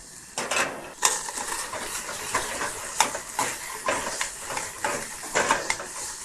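Diced bacon sizzling as it renders in a pan, stirred with a utensil that clicks and scrapes against the pan again and again.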